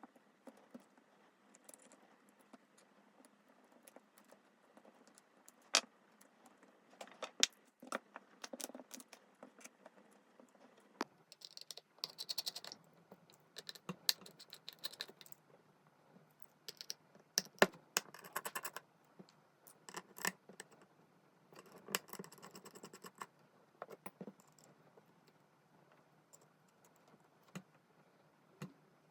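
Small hand tools and smartphone parts being handled during a phone repair: scattered light clicks and taps, with a few short scraping or rustling passages.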